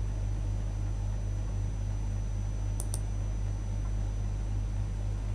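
Steady low electrical hum with a faint high whine, and two quick clicks in close succession about three seconds in.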